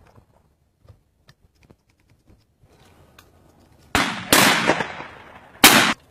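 Shotguns firing at doves: three sharp shots in quick succession, the first about four seconds in and the last under two seconds later, each with a short echo trailing off.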